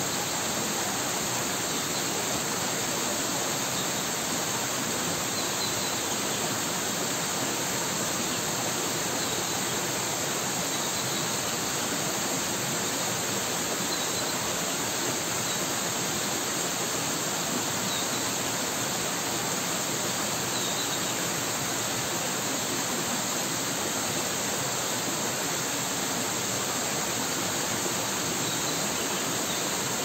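Small rocky mountain stream splashing down a series of little falls: a steady, continuous rush of water. A few faint high chirps come through now and then.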